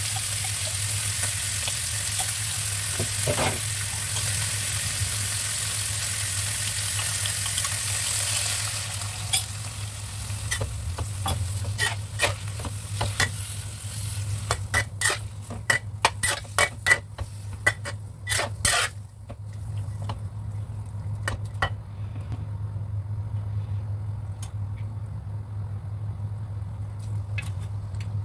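Beef chunks sizzling in a stainless-steel wok, then a metal spatula stirring them, clinking and scraping against the pan in a quick run of sharp knocks about ten seconds in. The sizzle dies away in the last third, leaving a few scattered clinks over a steady low hum.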